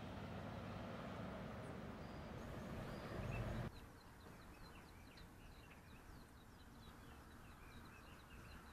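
A steady low rushing noise that cuts off suddenly a little under four seconds in, followed by small birds chirping, many short quick calls over a quiet background.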